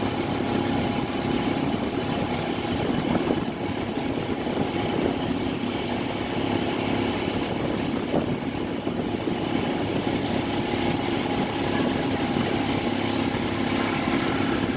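Steady engine drone and road noise from a vehicle moving through city traffic.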